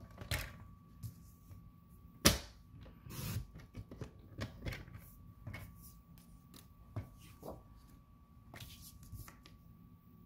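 Sheets of cardstock being handled and positioned on a paper trimmer: paper rustling and sliding, with scattered light taps and knocks and one sharper knock about two seconds in.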